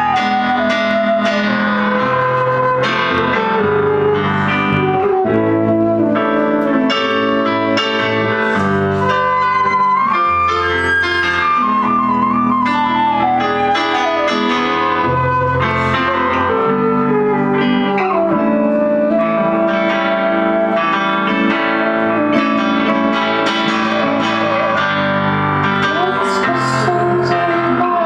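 A small live band playing an instrumental: a flute carries the melody over electric guitar, violin and a Roland electric keyboard, with a steady bass line beneath.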